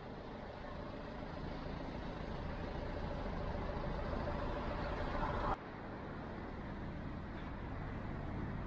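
Outdoor city ambience: a steady rumble of road traffic that swells a little over the first five seconds, then drops abruptly to a quieter background.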